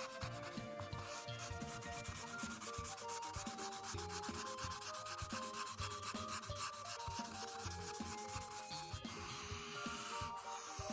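Marker tip scratching rapidly back and forth on paper as an area is colored in, the strokes stopping near the end, with soft background music underneath.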